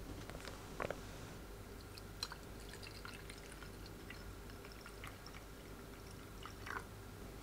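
Liquid poured from a glass pitcher into a glass mug, faint dripping and splashing, with a few light knocks.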